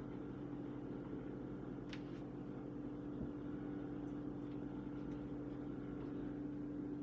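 Steady machine hum, like a kitchen appliance or fan running, with a couple of faint clicks about two seconds in.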